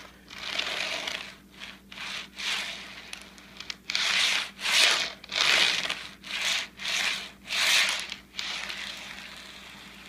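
An HO scale boxcar being pushed back and forth by hand over model track and a grade crossing: a string of about a dozen short scraping, rumbling strokes. The strokes stop about eight seconds in, leaving a softer steady noise.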